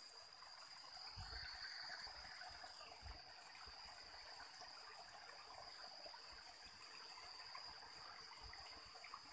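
Faint, steady trickle of water running into a shallow rocky stream pool, with a thin, steady high-pitched tone over it.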